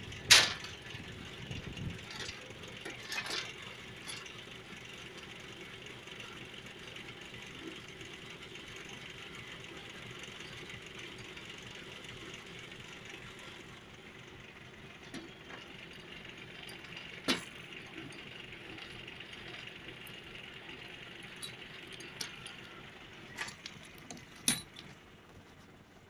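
Tractor-mounted forestry winch reeling in its steel cable and dragging chain-choked logs over the ground, over the steady running of the tractor engine. A few sharp knocks and chain clanks stand out, the loudest right at the start.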